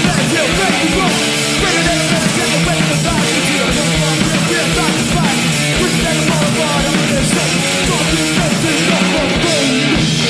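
Live punk band playing loud and without a break: distorted electric guitar and bass over a fast, driving kick drum.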